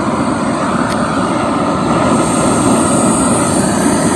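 BRS titanium gas canister stove burning under a pot of water: the steady hissing rush of the gas flame. It grows a little louder about halfway through.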